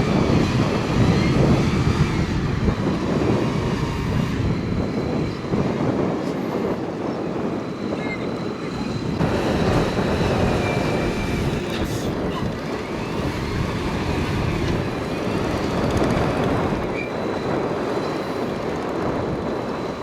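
Bulldozer's diesel engine running steadily under working load, a continuous low heavy-machinery rumble.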